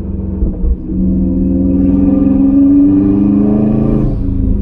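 The turbocharged EJ25 flat-four of a 2006 Subaru Impreza WRX STI, its exhaust cutout open, heard from inside the cabin. The engine note climbs steadily as the car accelerates in gear, then falls away about four seconds in as the driver lifts off to change gear.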